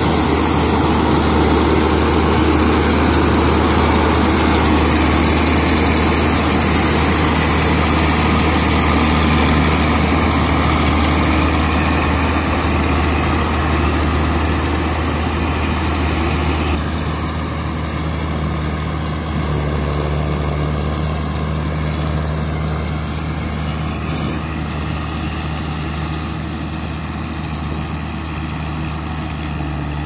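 Kuldeep 932 combine harvester working through a paddy crop, its diesel engine and threshing machinery running with a steady heavy drone. It grows somewhat fainter about halfway through as the machine moves away.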